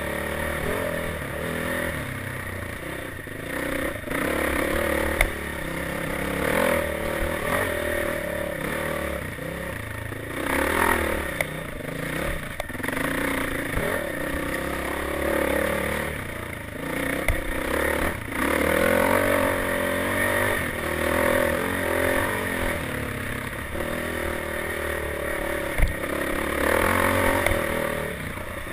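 Off-road motorcycle engine revving up and down under load as it is ridden over rough dirt track, with clattering and scraping, and sharp knocks about five seconds in and near the end.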